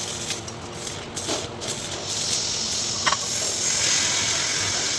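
Electric arc welding: a crackling hiss with scattered sharp clicks, growing denser and louder about two seconds in.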